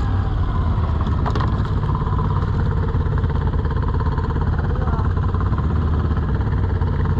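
Quad (ATV) engine running steadily as it is ridden through deep snow.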